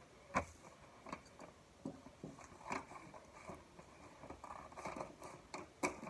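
Faint, scattered rustling and clicking as a fidget toy package is handled and opened, with a busier stretch of small crackles near the end.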